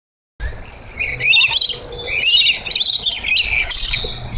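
A flock of lorikeets calling together: dense, overlapping shrill chirps and squawks as they crowd in for nectar.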